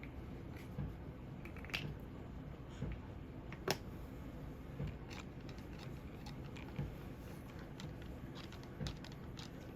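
Small plastic toy pieces being handled: scattered light clicks and taps, with one sharper click about four seconds in, over a steady low rumble.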